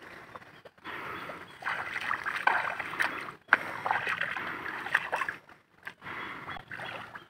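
Footsteps splashing and sloshing through shallow water and soft mud, in uneven bursts of a second or two with short pauses between.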